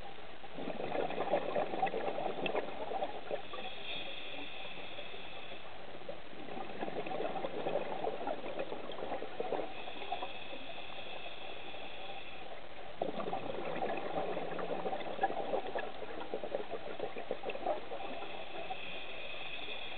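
A scuba diver breathing through a regulator underwater, about three breaths. Each breath is a long bubbling, crackling exhalation followed by a shorter hissing inhalation with a faint whistle.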